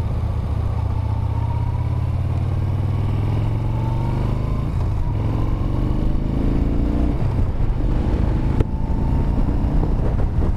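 2015 Yamaha Bolt's air-cooled V-twin on its stock exhaust, running steadily and then accelerating with its pitch rising. A single sharp click comes about two seconds before the end, with a brief dip in the engine sound.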